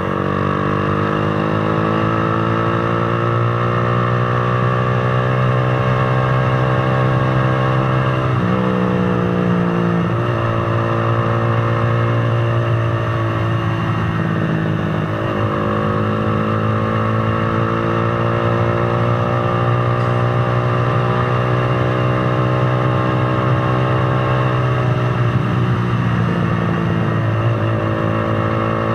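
Single motorcycle engine (Z200-series) heard from the bike while riding, pulling up through the gears. Its pitch climbs steadily, then drops sharply at gear changes about eight and a half seconds in, again around ten and fifteen seconds, and near the end, with wind and road noise underneath.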